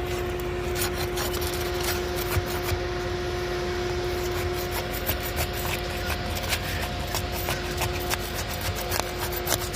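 Scraping and crackling of brittle, old asphalt shingles being worked loose, with many small sharp clicks throughout. A steady hum runs underneath.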